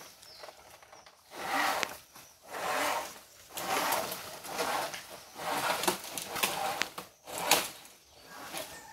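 Rustling and handling noises from someone working among dry palm leaves and undergrowth, in about seven short bursts roughly a second apart, with a few sharp knocks.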